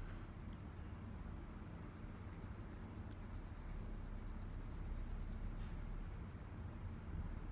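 Orange colour pencil scratching on paper in quick, repeated shading strokes as the lead is laid over an area, with a low steady hum underneath.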